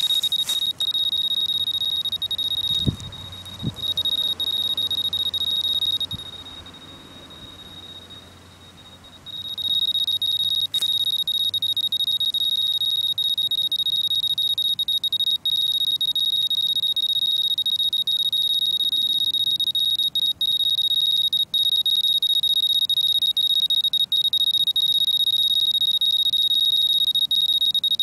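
Radiation survey meter's electronic alarm sounding a continuous high-pitched tone, which warns that the dose rate has passed its set threshold. The tone breaks off for about three seconds partway through, then resumes and holds. A couple of handling knocks come about three seconds in.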